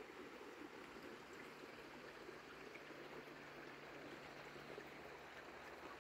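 Faint, steady rush of running water.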